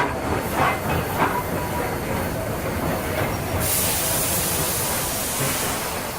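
Steam locomotive sound effects: a few exhaust chuffs over a steady running rumble, then a loud hiss of steam comes on suddenly a little past halfway and carries on.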